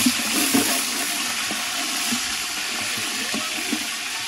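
Steady hiss of rain falling, mixed with sliced onions and whole spices frying in oil in a large aluminium pot as a ladle stirs them.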